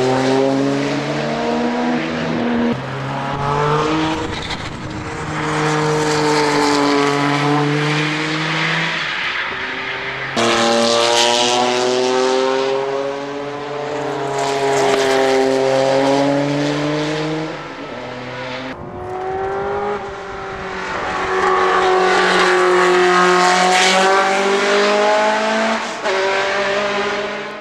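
Group C sports-prototype race cars, among them a Porsche 962, passing one after another at high revs. The engine note falls and rises through gear changes and pass-bys. The sound switches abruptly from one car to the next about three times.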